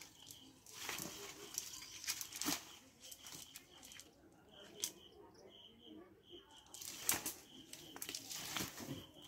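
A wet nylon cast net being handled and shifted by hand on mud as fish are picked out of it: irregular rustling and scraping with a few sharper knocks. A faint high chirp repeats about three times a second behind it.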